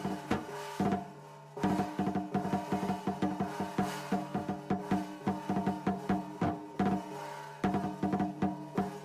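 Percussion music: drums and other struck instruments beating a fast, dense rhythm, breaking off briefly twice.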